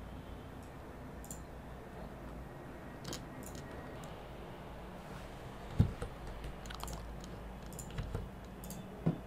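Scattered computer mouse clicks and keyboard keystrokes over a faint low hum, with a louder thump about six seconds in and another near the end.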